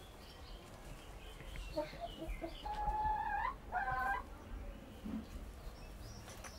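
Barred hens in a coop clucking, with a few short clucks followed by one drawn-out call about three seconds in and a shorter call right after it.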